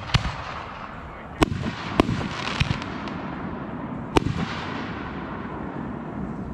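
Aerial fireworks bursting in the sky: about half a dozen sharp bangs at uneven intervals, each ringing out briefly, the loudest about four seconds in.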